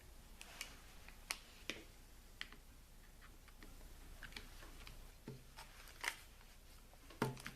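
Faint, scattered clicks and taps of small grinder parts being handled as a new carbon brush is fitted and seated in an angle grinder's brush holder.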